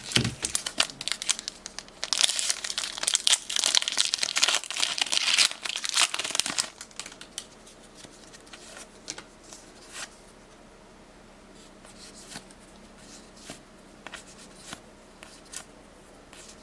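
Foil Pokémon booster-pack wrapper being torn open and crinkled for about the first seven seconds. After that it goes much quieter, with scattered faint ticks as the trading cards are handled.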